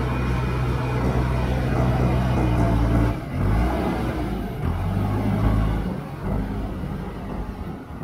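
JCB backhoe loader's diesel engine running under load as its front loader bucket pushes loose earth: a steady low drone whose note breaks and shifts about three seconds in.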